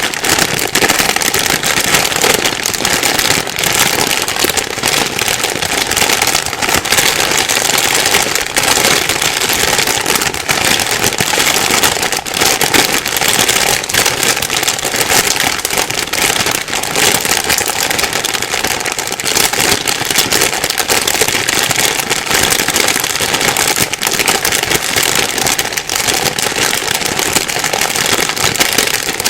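Plastic bag being crumpled and rustled without pause, a dense, steady crinkling crackle.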